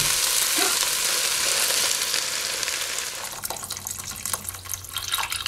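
Onions and red peppers sizzling in coconut oil in a pot, the sizzle dying down over a few seconds as the beans and chicken broth go in and cool the pan. A few light knocks come near the end.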